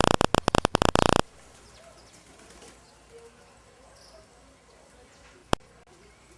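Loud, overloaded buffeting and crackling on the microphone for about the first second, cutting off abruptly. Then quiet rural ambience with faint bird calls and a single sharp click near the end.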